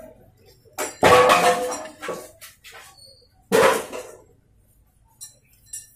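Two loud, pitched bursts of unclear source, the first about a second long starting about a second in and a shorter one about three and a half seconds in. Near the end come light clicks of a piston ring being worked onto a piston.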